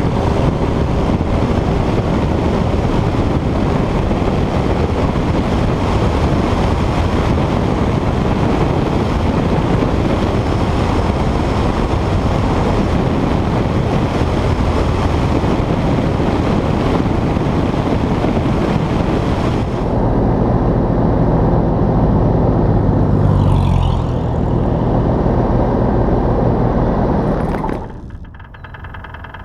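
Cessna 172 at takeoff power during its takeoff roll and climb-out, with the engine and propeller drone buried under heavy wind rush on the microphone. About twenty seconds in, the hiss thins and the engine's steady pitched drone comes through more clearly. Near the end the sound drops suddenly to a much quieter, lower engine hum.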